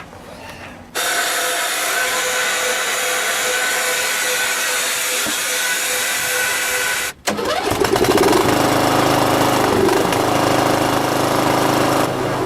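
Tractor being started: a steady high whirring noise begins suddenly about a second in and cuts off abruptly after about six seconds, then the engine runs with a low, steady note. The owner says the tractor's starter is not working properly.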